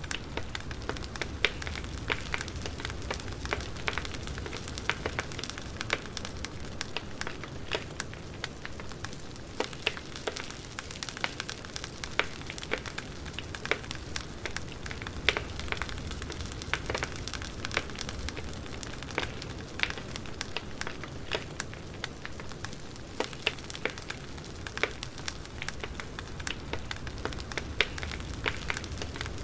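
Wood campfire crackling, with many irregular sharp pops and snaps over a steady low rumble.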